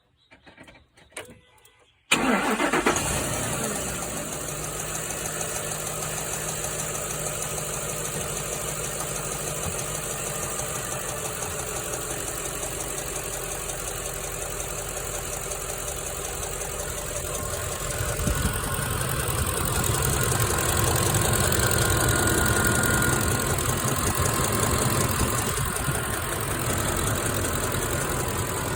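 Ford F-150's 5.4-litre V8 starts about two seconds in and settles into a steady idle, growing louder from about eighteen seconds in for several seconds. The engine has the ticking noise the owner is trying to trace, heard from both sides and louder when hot.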